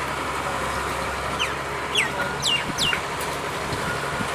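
A bird calling four times in quick succession, short high calls that sweep sharply downward, over the steady low hum of an engine running.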